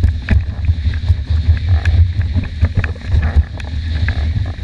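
Wind buffeting the microphone as a loud, gusting low rumble, with water splashing and slapping against a windsurf board in many short sharp hits.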